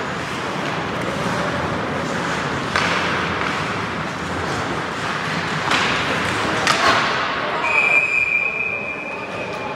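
Ice hockey play in a rink: skates and sticks on the ice with sharp stick-on-puck or board hits about three, six and seven seconds in, then a steady high tone held for about two seconds near the end.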